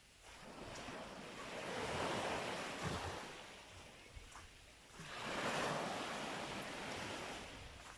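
Sea waves breaking and washing up a sandy beach. Two waves can be heard: one swelling to a peak about two seconds in and fading, and a second surging in about five seconds in and slowly draining away.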